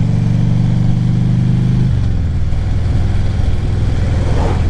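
Harley-Davidson Ultra Classic Limited's Twin Cam 103 V-twin engine running at a steady cruise. About two seconds in, the steady engine note changes abruptly to a lower, rougher rumble.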